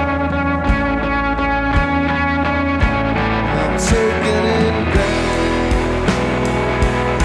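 Rock music: guitar chords held over a steady drum beat, with a low kick about once a second and cymbal hits.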